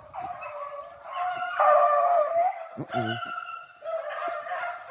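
A dog baying in long drawn-out howling notes while chasing a cottontail rabbit, loudest about two seconds in. A short, lower-pitched call comes about three seconds in.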